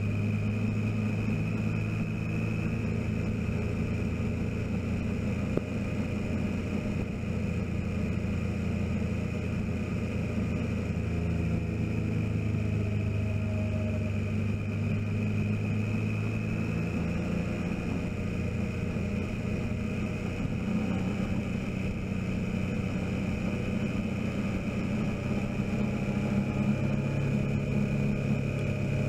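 Motorcycle engine running steadily at cruising speed, its pitch rising and falling a little with road speed, under a constant rush of wind and tyre noise.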